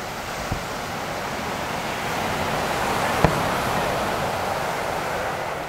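Surf washing onto the beach, swelling and then easing, with a sharp firework bang a little over three seconds in and a smaller pop about half a second in.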